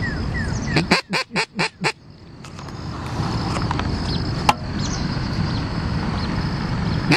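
Hand-blown teal duck call giving a quick series of five loud quacks, imitating a hen blue-winged teal to call in a drake, followed by steady outdoor background hiss.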